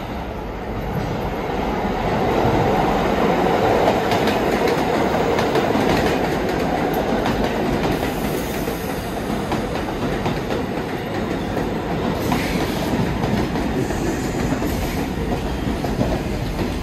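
New York City subway train running on the BMT Brighton Line, its wheels clicking over rail joints in a steady rumble that swells about two seconds in and then holds.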